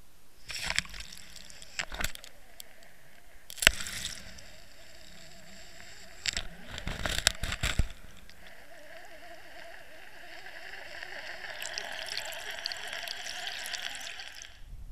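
Water sounds picked up by an underwater camera: a series of sharp knocks, the loudest about four seconds in and a quick cluster around seven seconds. A rushing, gurgling water noise then builds and runs on until near the end.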